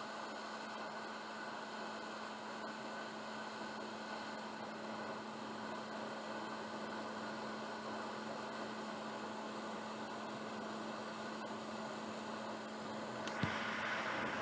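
Hot air rework station blowing a steady hiss over a low constant hum while reflowing solder on a small component pad. Near the end there is a click and the hiss gets louder.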